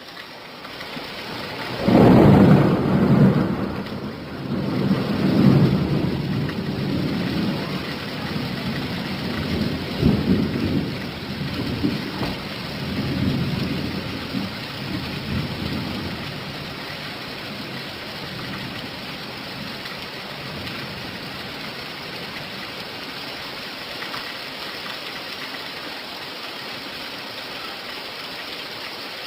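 Steady rain with a roll of thunder that breaks suddenly about two seconds in and rumbles on in several swells, dying away after some fifteen seconds, leaving the even hiss of the rain.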